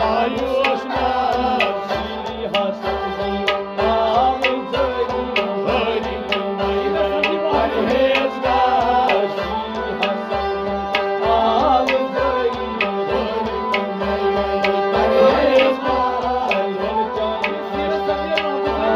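Kashmiri folk ensemble playing: a harmonium holds steady tones under a gliding bowed melody, while a clay pot drum is struck in a quick, steady rhythm.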